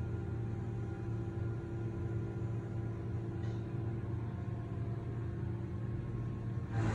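A steady low mechanical hum, like a motor or machine running, holding level throughout.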